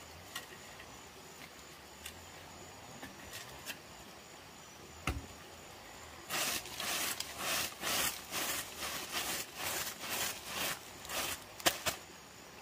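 A single knock, then a run of short scraping strokes, two or three a second, lasting about five seconds and ending in a couple of sharp clicks.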